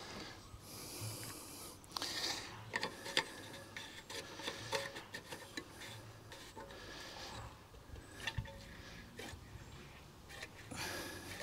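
Faint rubbing and scraping with scattered light clicks and knocks, from hands working on a petrol lawnmower and its plastic fuel can after refuelling.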